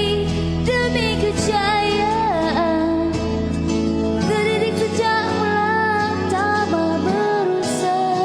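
Music: a song with a singing voice carrying a wavering melody over held chords and bass. The lowest bass notes drop out about four seconds in.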